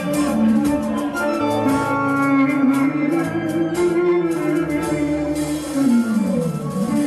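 Live Greek folk music: a clarinet plays the melody over strummed string accompaniment and a steady rhythmic beat, the melody sliding downward near the end.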